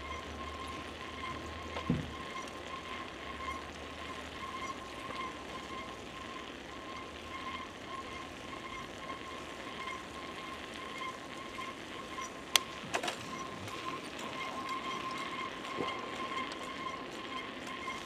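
A bicycle being ridden, with a steady, faintly pulsing whine and a few sharp clicks.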